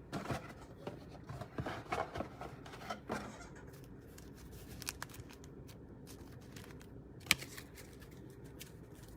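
Trading cards and plastic wrappers being handled and tidied on a tabletop: faint rustling with small clicks and taps, and one sharper click about seven seconds in.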